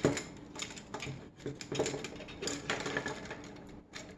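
Small 3D-printed plastic parts of a Strandbeest leg linkage clicking and rattling as they are handled and pressed onto the crankshaft. There is a sharp click at the very start, then irregular lighter clicks and taps.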